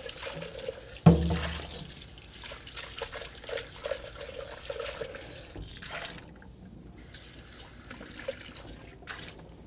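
Tap water running into a kitchen sink while a blender jar is rinsed out, with a loud clunk about a second in. The water stops about six seconds in, leaving only a few small handling sounds.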